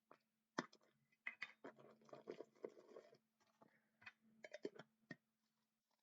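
Faint irregular crinkling, scratching and clicking, like packaging or objects being handled close to the microphone, over a faint steady low hum.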